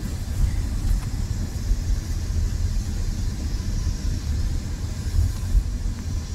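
Steady low rumble and road noise inside a moving car's cabin.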